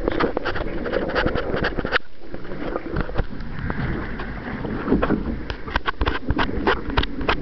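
Laser sailing dinghy moving through choppy water, with wind noise on the microphone and water rushing past the hull. Frequent sharp taps and splashes come and go throughout.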